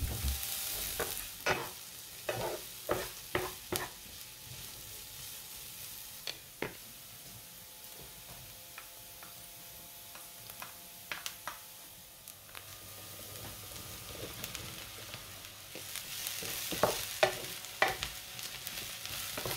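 Diced onions frying gently in fat in a nonstick pan, a steady sizzle, with a wooden spatula knocking and scraping in the pan now and then. Near the end sliced brown mushrooms are stirred in and the sizzle grows louder, with a quick run of spatula knocks.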